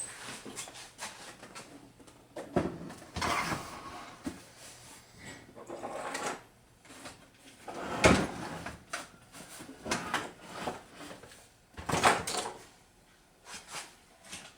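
Irregular knocks, clunks and scrapes of objects being handled and set down, with the sharpest knocks about eight and twelve seconds in.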